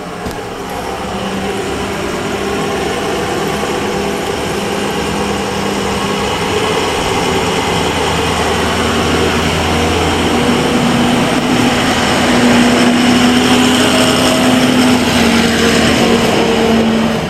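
Steady vehicle engine and road noise heard from inside the vehicle, growing gradually louder as it picks up speed, with the engine tone edging up in pitch in the second half.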